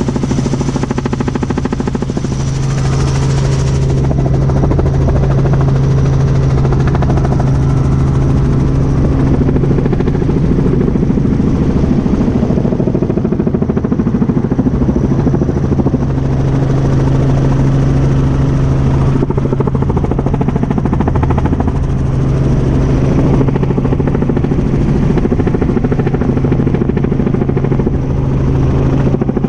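Tour helicopter in steady cruise flight, heard from inside the cabin: a constant, loud low drone of engine and rotors that does not change.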